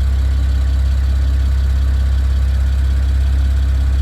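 BMW N54 twin-turbo straight-six idling steadily with an even low hum, running smoothly with no misfire now that the faulty ignition coil has been replaced.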